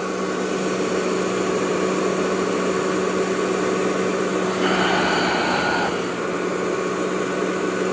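Hoover Model 28 vacuum cleaner motor running steadily with a humming drone over rushing air, the belt off so the brush roll is not turning, during a suction test. A little past halfway the air rush turns brighter and hissier for about a second.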